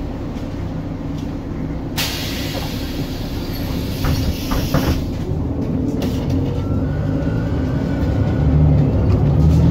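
The Volvo D7C275 diesel of a 2001 Volvo 7000A articulated city bus, driving a ZF 5HP592 automatic gearbox, runs with a steady low rumble. About two seconds in, compressed air hisses from the bus's air system for about three seconds. After that the engine grows louder and a faint gearbox whine rises in pitch as the bus pulls away.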